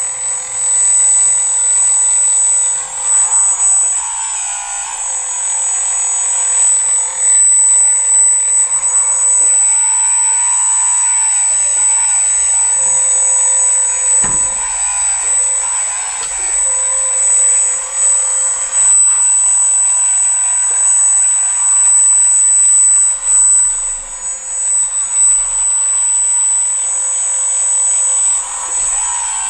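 Hydraulic pump and electric drive motors of a radio-controlled skid-steer loader model with real hydraulics, whining steadily while it drives and works its lift arms, the pitch bending up and down in places as the load on the pump changes. A single thump about halfway through.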